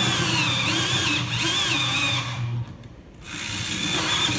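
Power drill spinning a hole saw as its teeth cut into a plastic enclosure box, a rasping cut with a whine that wavers in pitch. It stops about two and a half seconds in and starts again half a second later.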